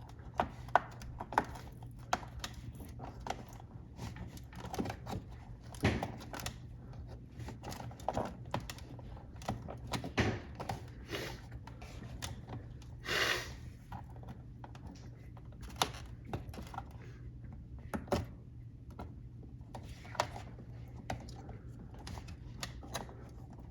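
Irregular clicks and knocks of parts and wiring being handled inside a refrigerator while a defrost sensor is worked loose, with one short scraping rush about halfway through. A steady low hum runs underneath.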